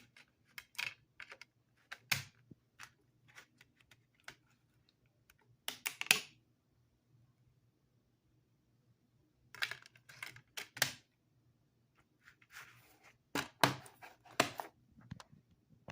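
Plastic DVD box set being handled and opened: irregular clicks and snaps with short rustles, coming in bursts, over a faint steady hum.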